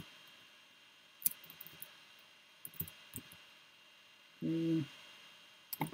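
Soft keystrokes on a computer keyboard as a word is typed: a handful of light clicks spread over a few seconds. About four and a half seconds in, a short hummed "mm" from a man.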